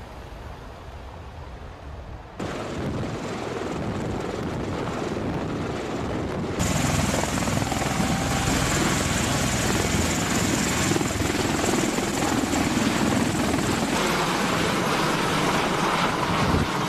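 Bell Boeing V-22 Osprey tiltrotor in helicopter mode, nacelles upright: the steady, heavy noise of its two proprotors and Rolls-Royce AE1107C turboshaft engines. It starts quieter, then steps up louder about two seconds in and again about six and a half seconds in.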